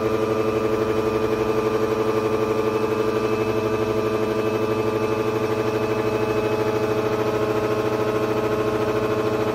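Blender motor running steadily, a constant hum with a fast, even flutter.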